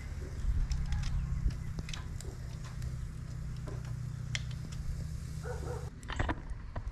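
Metal tongs clicking and scraping on a charcoal grill's steel grate as lamb chops are turned, in a scatter of sharp clicks over a steady low hum.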